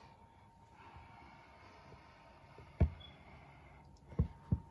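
Quiet room tone broken by dull thumps: one about three seconds in, then two close together near the end, typical of handling the phone or toys on carpet.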